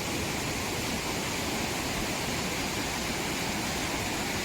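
Steady rush of fast-flowing water from a mountain waterfall and river.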